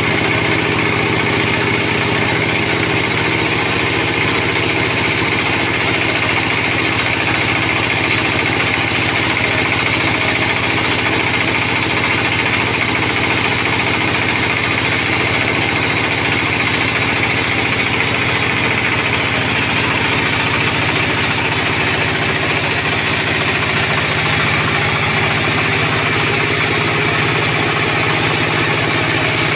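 Band sawmill running steadily while its blade rips a long sonokeling (Indian rosewood) beam lengthwise: a continuous loud machine drone.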